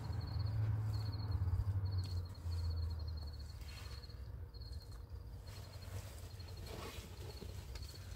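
Crickets chirping in short, high, evenly pulsed trills repeating under a low rumble that dies away about three seconds in.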